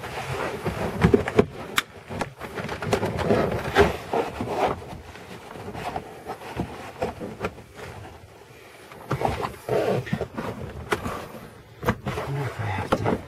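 Irregular clicks, knocks and scraping of hands and tools working on a car's plastic interior trim panels.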